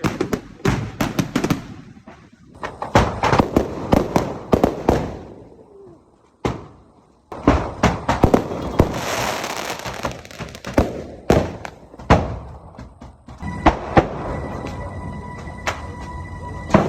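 Fireworks going off: rapid runs of sharp cracks and pops, in several stretches that start and stop abruptly.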